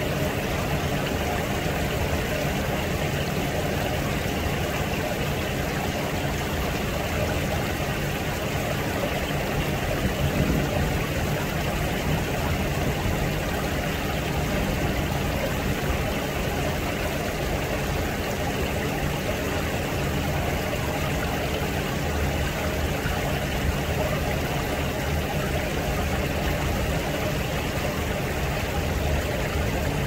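Steady rushing noise with a low, even hum underneath, unchanging throughout, with no distinct events.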